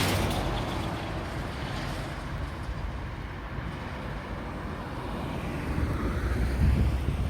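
Road traffic passing: one vehicle's tyre and engine noise fades away, and another approaches and grows louder near the end.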